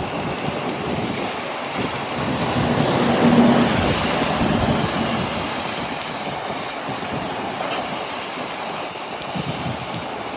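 Wind rushing over the microphone and wet road noise while riding in the rain, swelling to its loudest about three to four seconds in, then easing off.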